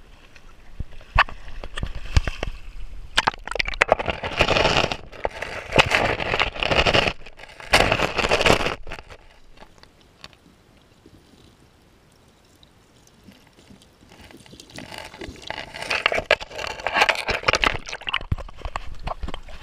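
Water splashing and sloshing in a shallow creek, with the sound going dull and much quieter for a few seconds in the middle while the microphone is underwater, then splashing again near the end.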